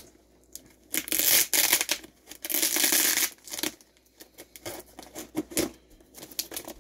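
Packing tape and plastic wrap on a cardboard shipping box being cut and torn open with a small knife. There are two long ripping tears, one about a second in and one near the middle, then smaller scrapes and crinkles.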